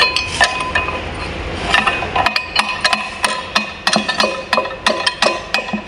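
Steel spanners and a bar clinking and knocking against the flywheel and its bolts as the flywheel of a TCM FD50 forklift's Mitsubishi engine is unbolted. The clinks are sharp, with some metallic ringing. They become quick and irregular about two seconds in, roughly three or four a second.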